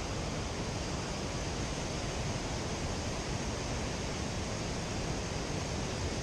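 Steady rush of water from a waterfall and the river below it, an even constant noise.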